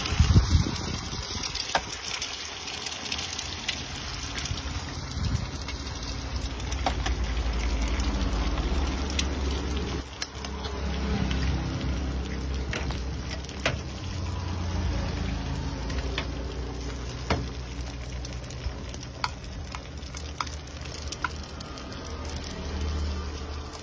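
Eggs frying in a pan with a steady sizzle, and sharp clicks every few seconds as eggshells are cracked open over it. A low rumble runs underneath.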